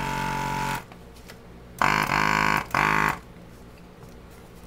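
Desoldering station's vacuum pump buzzing in bursts. One run stops about a second in, then two shorter runs come about two and three seconds in, each starting with a brief sweep in pitch.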